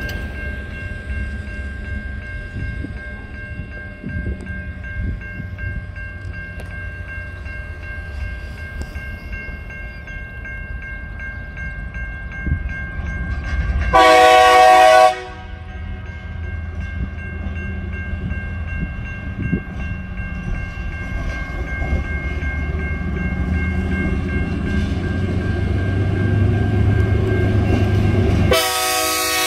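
Diesel locomotive TR13 and a second diesel approaching on a cement train, engines rumbling and growing louder as they near. The horn sounds once for about a second halfway through and again just before the end. Steady high ringing from level-crossing warning bells runs underneath.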